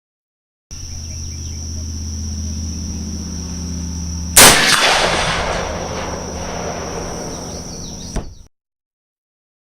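One rifle shot from a Mosin-Nagant 91/30 firing 7.62x54R, about four seconds in, loud and sharp, with an echo that dies away over a second or two.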